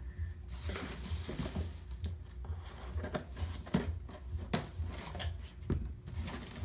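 Scissors cutting the packing tape on a cardboard shipping box, with irregular scraping and rustling of the cardboard and several short, sharp knocks.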